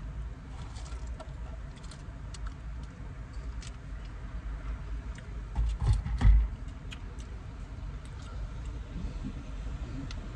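Steady low hum inside a car cabin, with scattered light clicks and rustles as food is handled, and two dull thumps about six seconds in.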